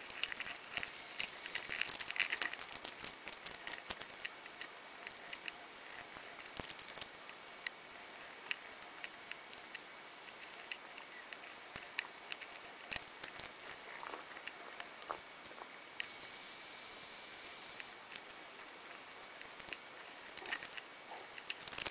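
Small clicks, taps and rustles of screws, plastic gimbal parts and wiring being handled while the gimbals of a FrSky Taranis Q X7 transmitter are swapped. Near the three-quarter mark there is a steady high hiss with a faint whine for about two seconds.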